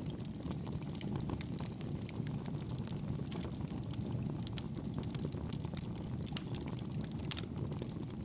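Wood fire burning in a fireplace: a steady low rushing of the flames with irregular small crackles and pops.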